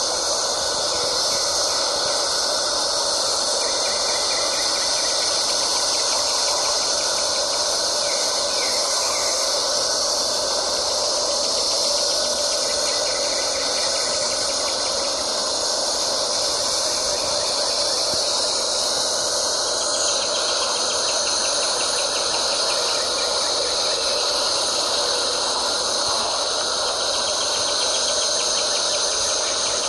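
A dense, steady chorus of insects in summer woods, high-pitched and unbroken. A pulsing call within it changes about two-thirds of the way through.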